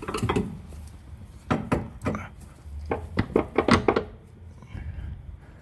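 A run of sharp knocks and clatter from tools and metal parts being handled, most of them about a second and a half to four seconds in.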